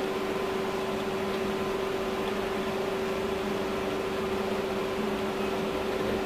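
MACPI 335.48/49 hem-folding machine running, its top and bottom conveyor belts feeding fabric: a steady motor hum with a constant tone over an even hiss.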